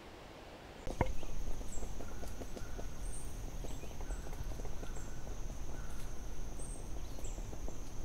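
Forest ambience: a soft hiss, then about a second in a new recording cuts in with a click and runs on as a dense scatter of small ticks and crackles over a low rumble, with a steady high thin tone and short high bird chirps repeating every half-second or so.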